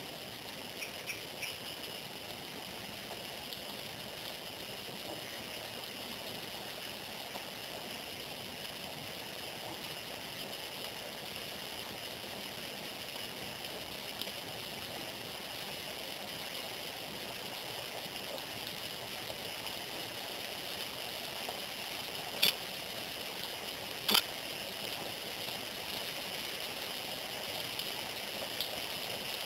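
Steady, even background hiss, with two sharp clicks about a second and a half apart near the end.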